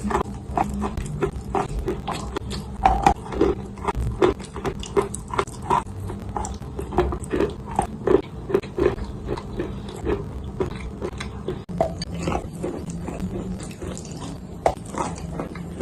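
Dry clay being bitten and chewed close up, a steady run of short crisp crunches, a few each second.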